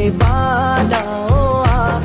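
Background music: a song with a sustained, wavering vocal melody over a regular drum beat.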